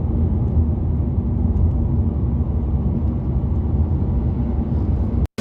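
Road and engine noise of a moving car: a steady low rumble that cuts off abruptly near the end.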